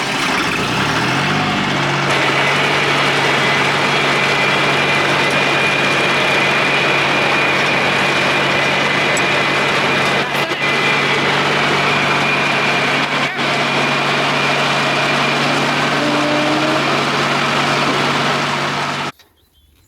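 Tractor engine speeding up over the first two seconds as the PTO is engaged, then running steadily driving the Siromer P10 round baler, with a steady high whine from the driveline. The sound cuts off suddenly near the end.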